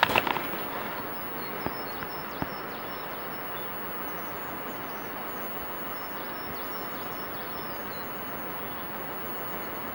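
Small birds chirping faintly over a steady outdoor background hiss. A few handling knocks come right at the start.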